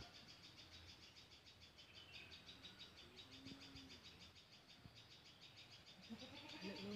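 Near silence outdoors, with a faint, fast, evenly repeating high chirring typical of an insect, and a faint murmuring voice near the end.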